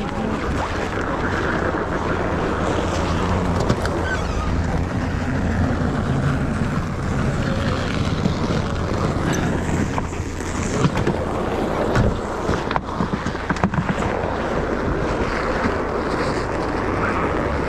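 UAZ Patriot's engine running while under way, with steady wind and road noise over it, and a few sharp knocks about twelve to fourteen seconds in.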